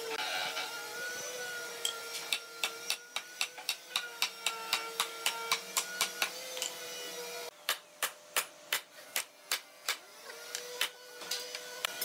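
Quick, evenly spaced knocks, about three to four a second, over a steady hum.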